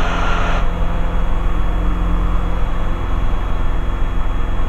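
The Robin DR400/180's four-cylinder Lycoming engine and propeller drone steadily in the cockpit during the climb-out after takeoff. A hiss drops away about half a second in.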